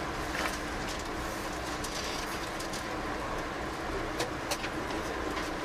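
Steady running noise of a passenger train in motion, heard from inside the coach, with a faint steady hum and a few sharp clicks.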